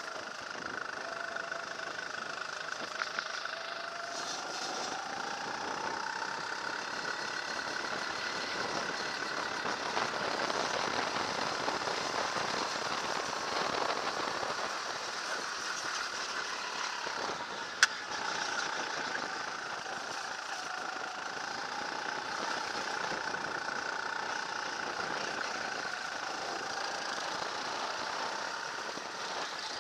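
Racing kart engine heard onboard at speed, its pitch rising and falling every few seconds as the driver accelerates out of corners and lifts into them, over steady wind and tyre noise. A single sharp click about eighteen seconds in.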